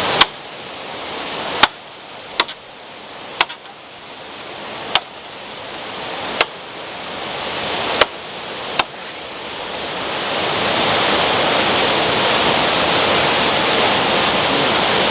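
Rushing water, with a series of sharp clicks every one to two seconds over the first nine seconds; after that the water runs on steadier and louder.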